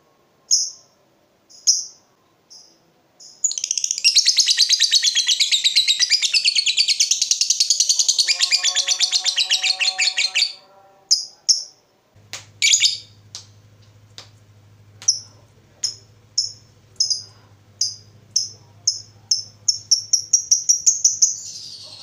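Lovebird singing: a few spaced chirps, then about three and a half seconds in a long rapid chattering trill of about seven seconds, the drawn-out 'ngekek' of a lovebird in full song. After a short pause single chirps resume and come faster and faster toward the end, over a faint low hum.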